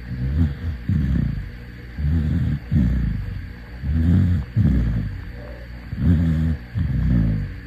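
Dog snoring in deep sleep: low-pitched snores in pairs, one on the breath in and one on the breath out, about every two seconds.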